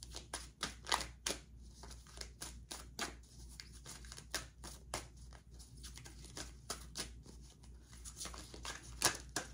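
A deck of oracle cards being shuffled by hand: irregular sharp clicks and slaps of card on card, a few a second, with a couple of louder snaps near the end.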